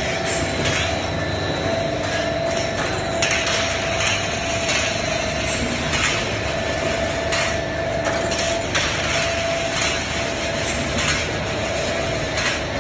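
An ERW pipe welding line running: a steady mechanical din with a constant mid-pitched tone, broken by irregular clanks and knocks every second or few.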